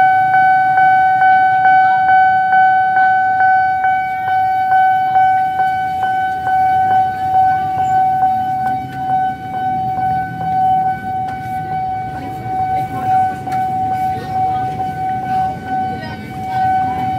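Railway level crossing warning alarm sounding with barriers down: one steady high tone with a regular click about three times a second that fades out after about ten seconds, over motorbike engines idling in the waiting traffic.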